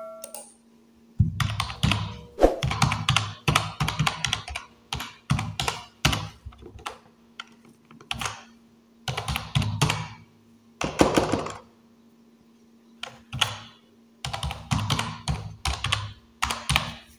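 Typing on a computer keyboard: quick runs of keystrokes with short breaks, and a pause of about two seconds near two-thirds of the way through. A faint steady hum runs underneath.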